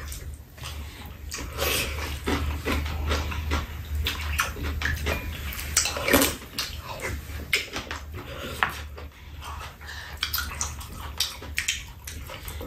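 People eating fried rice: chewing and wet mouth sounds, with many short clicks of spoon and chopsticks against bowls and a metal pan, over a steady low hum.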